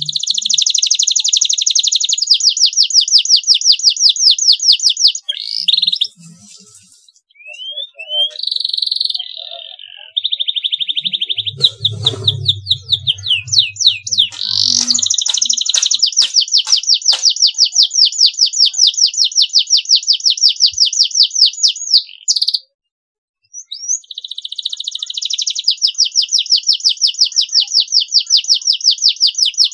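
Domestic canary singing: long runs of very fast, high-pitched repeated notes in rolling trills, twice broken by short pauses.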